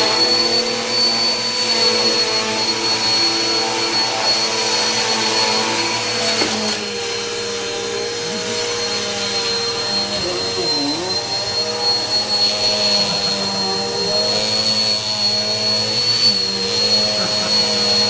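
Vacuum cleaner running steadily, with a high motor whine over a lower hum; its note dips briefly about eleven seconds in.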